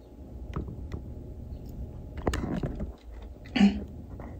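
Clear plastic window sheet of a doll box being handled: a few light crackles and taps, with the loudest clack about two seconds in and another short crackle near the end.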